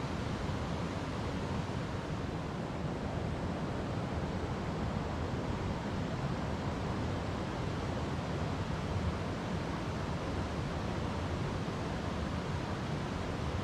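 River water flowing over rocks: a steady, unbroken rush, deepest in the low end.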